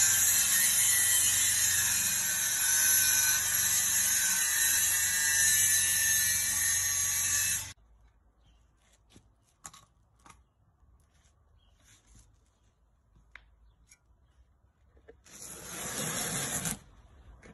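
A disc cutter grinding through a concrete kerb stone to trim it to size: a loud, steady grinding that cuts off abruptly about eight seconds in. After it there are only a few faint clicks, and a brief burst of noise near the end.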